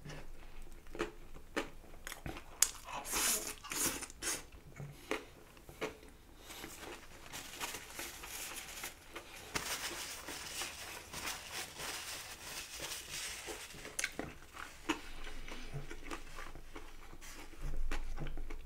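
Close-miked biting and chewing of a roast pork bao with crispy pork skin: irregular sharp crunches, with a denser run of crackly chewing in the middle.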